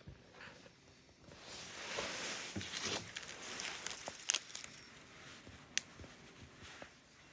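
Rustling and scuffling with a few sharp clicks and taps, starting about a second and a half in and easing off toward the end.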